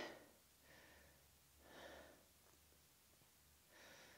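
A woman breathing faintly while holding a side plank: three slow breaths about two seconds apart.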